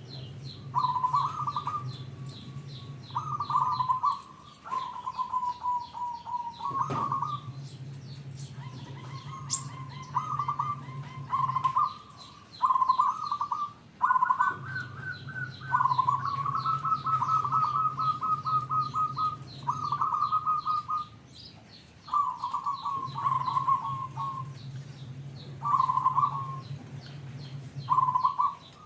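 Zebra dove (perkutut) singing in full voice: repeated cooing phrases of quick staccato notes, a fresh phrase every second or two. Fainter, higher chirps of small birds sound behind it.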